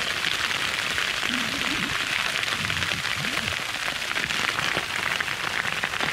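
Hail falling heavily on a tent and the ground around it: a steady, dense rattle of countless small impacts.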